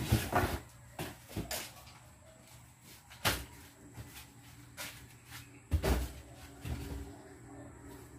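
A series of knocks and bumps from objects being handled, shifted and set down on shelves or cupboards, about seven in all, the loudest a heavy bump about six seconds in.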